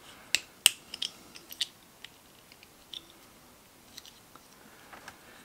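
Small parts of a miniature replica AK-47 kit clicking and tapping together as they are pushed into place by hand: a quick run of sharp clicks in the first two seconds, then a few faint ticks.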